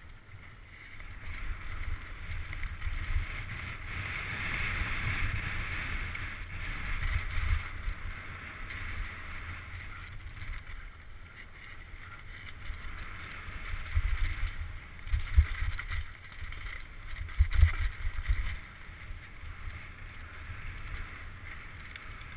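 Mountain bike riding fast down a dirt downhill trail, heard from a helmet-mounted camera: tyre and frame noise with wind rushing past the microphone, and several heavy knocks from bumps in the second half.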